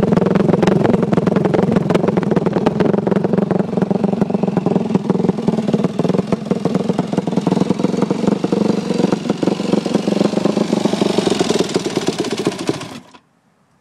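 Yamaha YZ250F dirt bike's single-cylinder four-stroke engine running through a Big Gun aftermarket exhaust, a loud, steady exhaust note that cuts off suddenly near the end.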